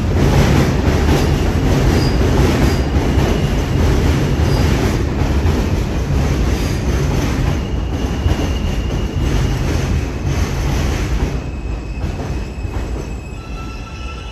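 New York City Subway F train of R160 cars pulling into a station and braking: heavy rail rumble and wheel clatter with short bits of wheel squeal. It grows quieter in the last few seconds as the train slows, and a steady whine comes in near the end.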